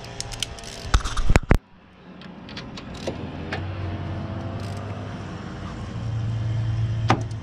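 Metal clinks and clicks of a ratchet and socket being handled and worked on a bolt, with a few loud knocks about a second in. A steady low hum runs underneath and grows louder from about six seconds in.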